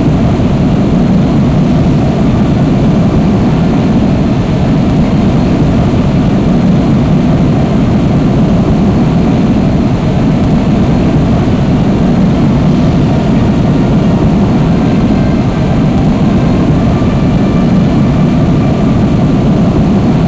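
Steady, loud rumble of a jumbo jet's engines, with faint whining tones above the rumble.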